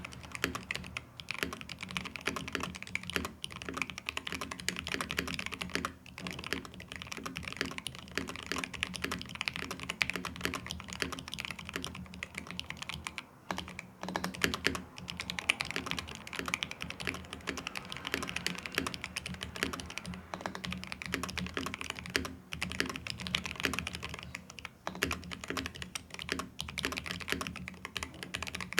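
Typing on a mechanical keyboard fitted with thick polycarbonate Cherry-profile keycaps (Deadline Studio Air-Hutt): a fast, steady stream of keystrokes with a few brief pauses. The keystrokes sound fairly deep, more thocky than clacky.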